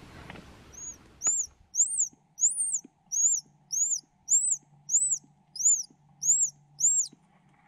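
A bird calling: a run of about eleven short, high whistled notes, each rising and then falling, a little under two a second. A faint steady hum runs beneath.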